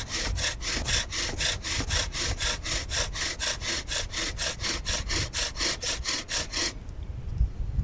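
Bow drill in use: the bow is sawn back and forth, and the wooden spindle grinds against the hearth board in an even rhythm of about five strokes a second. It stops abruptly about seven seconds in. The hearth is already smoking, so the friction has made the spindle tip hot enough to char the wood.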